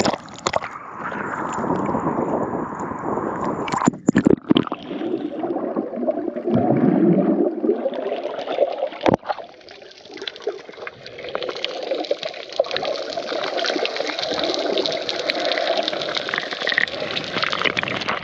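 Sea water sloshing and gurgling around the microphone, with a few sharp knocks about four and nine seconds in.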